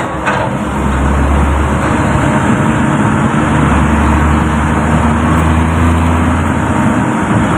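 Engine and road noise of a moving passenger vehicle, heard from inside the cabin by an open side window: a steady low engine drone under a loud, even rush of road and traffic noise.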